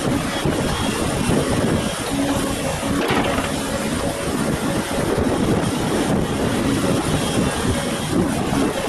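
Volvo crawler excavator running steadily as it swings its upper body and works its boom, with a brief louder noise about three seconds in.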